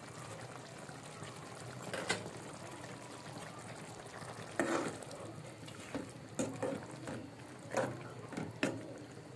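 Meat curry with mung dal cooking in a metal karahi, a steady sizzling hiss, with a spatula scraping and knocking against the pan: once about two seconds in, then several times in the second half as the dal is stirred in.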